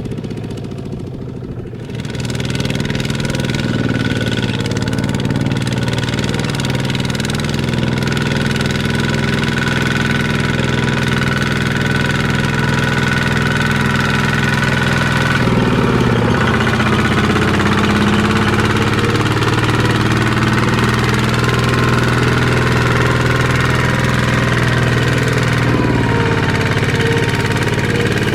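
Walking tractor's engine running steadily, growing louder about two seconds in; its pitch dips and recovers about halfway through, then shifts again near the end.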